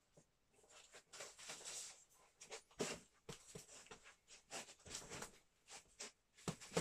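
A boxer's short, sharp exhalations, several a second, in time with his punches, with a few soft thuds of boxing gloves landing.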